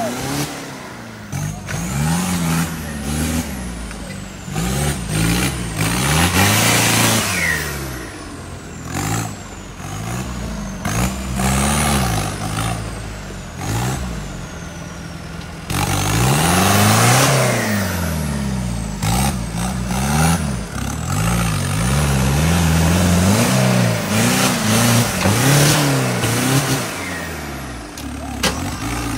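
Diesel engine of a modified Toyota off-road pickup revving hard again and again, its pitch climbing and dropping every second or two. A thin high whistle rises and falls with the revs, and there are loud bursts of hiss about a quarter and halfway through.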